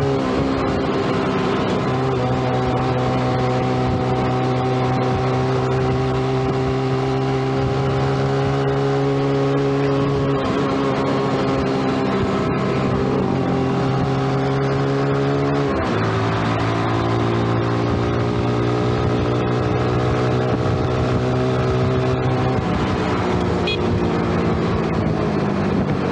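2012 Yamaha underbone motorcycle's engine running under way at cruising speed, with wind rushing over the microphone. The engine note dips about ten seconds in, drops sharply and picks up again around sixteen seconds, and falls away gradually over the last few seconds as the throttle eases.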